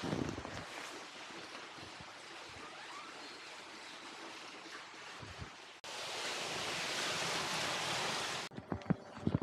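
Steady rush of falling water, a waterfall in a rocky gorge. About six seconds in it cuts to a louder, brighter rush, and near the end a few knocks like footsteps.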